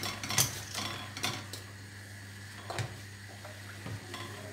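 A few sharp clicks and knocks as a plastic electric hand mixer and its metal beaters are handled and set down on a stone countertop, the mixer not yet running. A low steady hum sits underneath.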